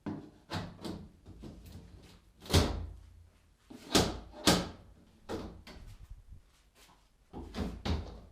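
Irregular knocks and heavy bangs as the shipping crate of a mill/drill/lathe is worked open, the loudest about two and a half seconds in and a pair of hard bangs around four seconds in.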